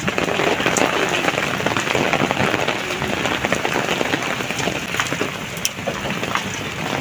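Heavy rain pouring onto a hard surface: a steady hiss with many individual drops ticking and spattering throughout.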